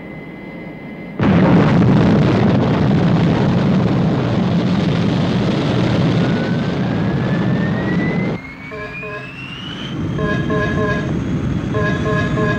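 Thunderbird 1's takeoff engine blast, a loud rushing noise that starts suddenly about a second in, with a whine rising in pitch. About eight seconds in it drops to a quieter engine hum inside the cockpit, over which a rapid pattern of electronic beeps sounds: the camera detector warning that the craft is being photographed.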